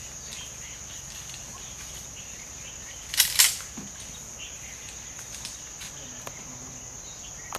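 Steady high-pitched drone of forest insects, with two quick harsh bursts a fraction of a second apart about three seconds in.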